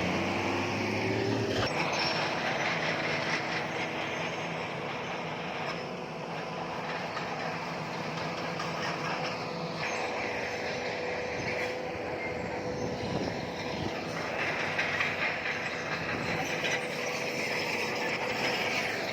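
Crawler bulldozer working, its diesel engine running under the clank and squeal of its steel tracks. A steady squealing tone runs through the middle stretch.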